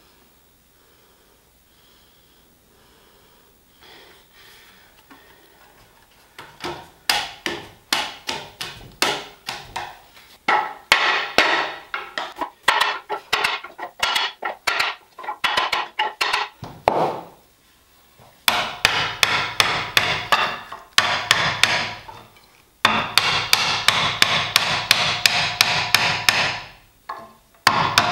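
Mallet striking glued-up wenge table legs, knocking the joints home during glue-up. Rapid runs of sharp knocks, about three to four a second, begin several seconds in, with short pauses partway through.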